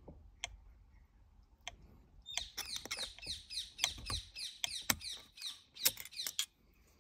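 Plastic airbag connector plug being pried and worked out of its socket with a thin screwdriver. A few clicks, then from about two seconds in a quick run of short, high squeaks and clicks as the plastic scrapes and shifts, until the plug comes free near the end.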